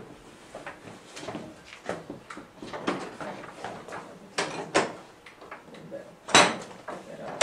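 Large paper sheets and boards being handled at an easel: a run of rustles and light knocks, with one louder rustle about six seconds in.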